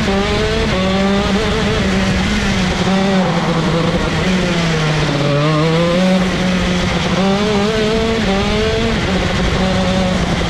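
A 125cc ROK Shifter kart's two-stroke engine running hard, its pitch rising and breaking again and again as it revs and shifts. It drops lower about halfway through, then climbs again.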